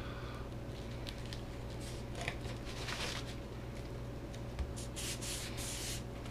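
Hands rubbing and pressing on an EPP foam wing as a glued plywood brace is pushed into its slot: a few soft rubbing swishes, the strongest around the middle and again near the end.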